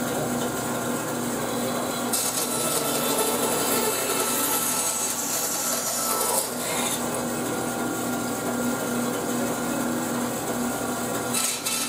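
Bandsaw running with a steady motor hum while its blade trims a small wooden inlay plug. The cutting noise comes up about two seconds in, lasts to about six and a half seconds, and returns briefly near the end.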